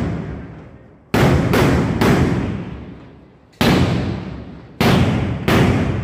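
Firecrackers going off: six loud bangs, a cluster of three in the first half and three more spaced out after, each trailing off in a long echoing tail.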